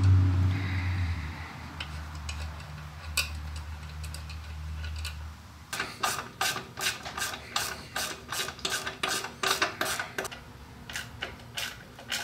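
Ratchet wrench clicking in quick strokes as the skid plate mounting bolts are run in, starting about halfway through. Before that, a low steady hum with a few light taps of metal hardware.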